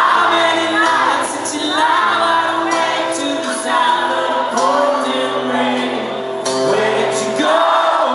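Live rock concert music with held chords and singing voices in a large hall, the audience's voices mixed in with the singer's. The low accompaniment stops about seven and a half seconds in.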